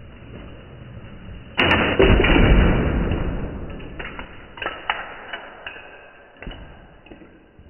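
Lego Technic model cars colliding: a sudden plastic impact about a second and a half in, a heavier hit half a second later, then a clatter of bricks that dies away, with a few loose pieces clicking onto the tile floor afterwards.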